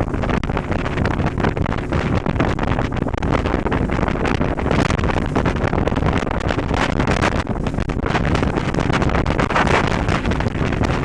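Wind buffeting the microphone on a moving motorboat, over the steady running of the boat's motor.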